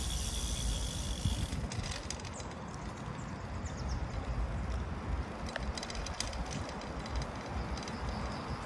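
Riding noise from a small ride-on vehicle: wind rumbling on the microphone and tyres running over paving stones, with clusters of rapid clicking and rattling about two seconds in and again near six seconds.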